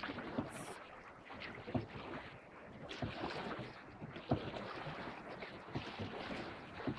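Water splashing and sloshing around a paddled canoe on a river, with irregular knocks of paddle strokes against the water and hull.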